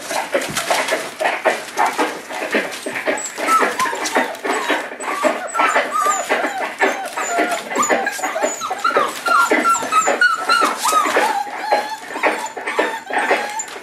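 Five-week-old Boerboel puppies whining and yelping, many short calls overlapping one another, with newspaper crackling under their paws.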